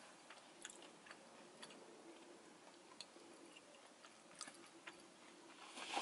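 Faint chewing of a fried, cheese-filled jalapeño popper with the mouth closed, with soft scattered mouth clicks. A soft rustle starts near the end.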